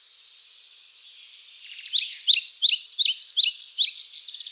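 Bird singing a loud, fast run of short repeated notes, about five a second, starting about two seconds in and stopping near the end, over faint chirping of other birds.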